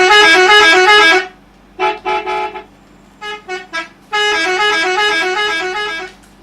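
Telolet bus horn playing a quick warbling tune of alternating notes: a long run, a few short toots about two and three and a half seconds in, then another long run.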